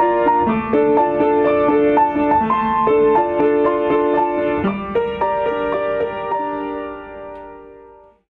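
Background piano music, the notes changing about twice a second, fading out to silence near the end.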